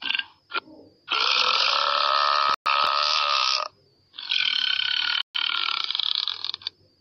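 Burps: two short ones, then two long drawn-out ones of about two and a half seconds each.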